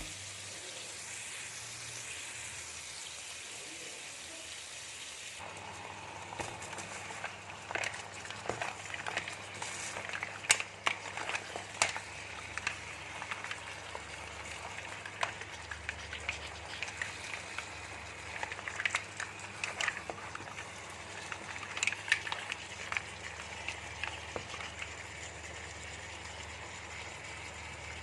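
Food frying in a hot pan: a steady sizzle with scattered sharp pops and crackles that thicken from about five seconds in.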